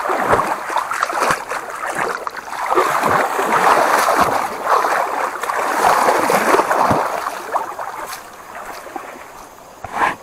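Shallow muddy creek water being beaten and churned, a run of repeated splashes to scare fish into a gillnet. The splashing dies down about eight seconds in, and a short knock comes near the end.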